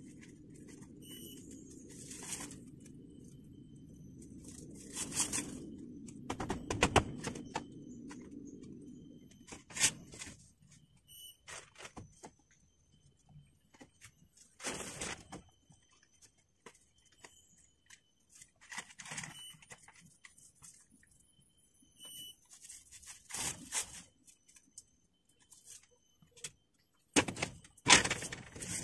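Scattered knocks, clicks and scrapes at irregular times, the loudest near the end, over a low steady rumble that stops about nine and a half seconds in.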